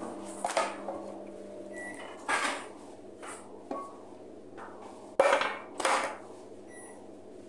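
Metal ladle clinking and scraping against an aluminium pot as tomato sauce is scooped and poured over vegetables in a pan: several short knocks, the loudest a little past five seconds in.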